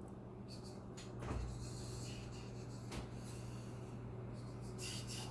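Quiet handling noise: a few light clicks and knocks over a steady low hum, with a short breathy hiss near the end.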